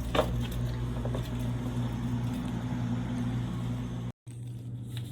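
Steady low electrical hum with a few light clicks about a quarter of a second in. The sound cuts out briefly about four seconds in.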